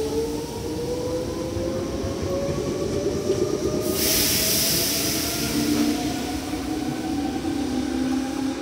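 Meitetsu red electric train pulling away from the platform, its motor whine rising slowly in pitch as it gathers speed over a low wheel rumble. A sharp burst of hiss comes about four seconds in and fades over a second or two.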